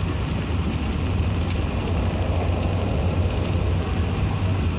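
Steady low drone of cabin noise inside an Airbus A380-800, heard from a passenger seat.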